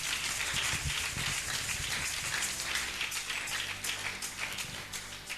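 Dense, steady patter of rain, slowly fading toward the end.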